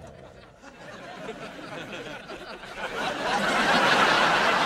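Sitcom studio audience laughter, rising from scattered chuckles into a full wave of laughing that peaks near the end.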